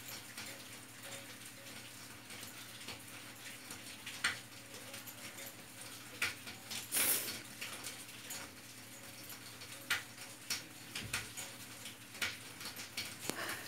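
Quiet handling noises: scattered light clicks and soft rustles over a steady low hum, with one louder rustle about halfway through.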